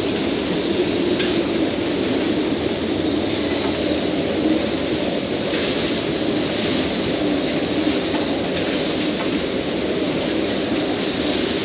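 Strong hurricane wind blowing steadily, with a wavering howl and a faint high whistle running through it.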